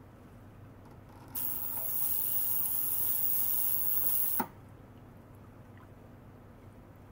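Ultrasonic cleaner switched on for about three seconds: a loud, high hiss from its water bath starts suddenly about a second in and cuts off abruptly with a click. Under it runs a faint steady low hum.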